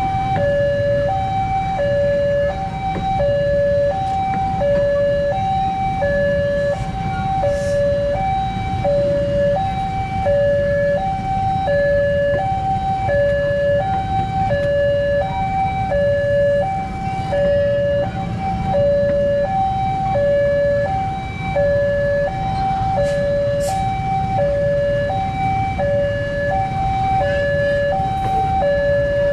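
Railway level-crossing warning alarm sounding a steady two-tone hi-lo signal, the tones alternating about every 0.7 s, over the low rumble of passenger coaches rolling past on the track.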